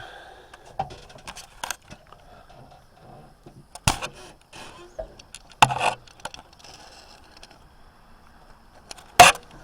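Sharp clicks and knocks of light switches and controls being worked inside an MRAP's cab, about five scattered strokes with the loudest near the end, over a faint steady hum.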